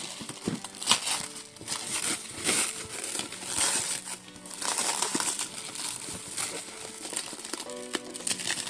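Packaging being handled and unwrapped, with irregular crinkling and rustling, over background music.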